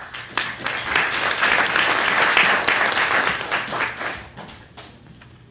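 Audience applauding. It builds over the first second, holds, and fades out about four to five seconds in.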